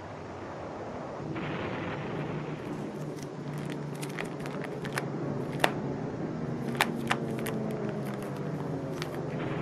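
Handling noise: scattered sharp clicks and crackles, the loudest about five and a half and seven seconds in, over a steady low rumble.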